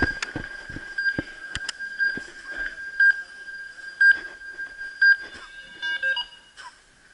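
High steady electronic tone from laser tag equipment, swelling about once a second, with scattered sharp knocks and a quick cluster of electronic bleeps about six seconds in.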